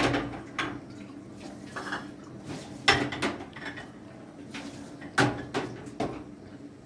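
Dishes and utensils clinking and knocking against each other, about seven separate sharp knocks in small clusters, with pauses between.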